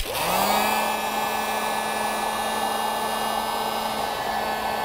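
Electric heat gun switched on, its fan motor spinning up within about half a second, then running steadily with a rush of air. It is heating solder-and-shrink-tube wire connectors to melt the solder and shrink the tubing.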